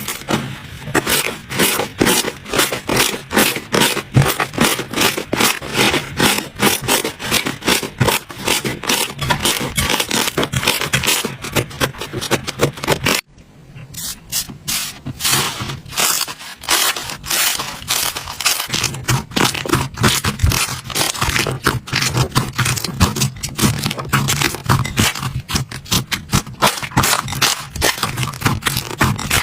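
Hands squeezing and poking slime: a rapid run of sticky clicks and crackles. It breaks off briefly about halfway through, then picks up again.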